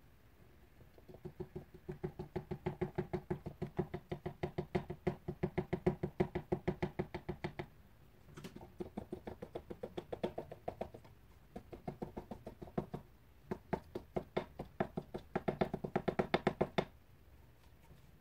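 Quick, regular tapping of a plastic paint cup against a stretched canvas, about six dull knocks a second. The tapping comes in four runs with short pauses between them, shaking paint out onto the canvas corners.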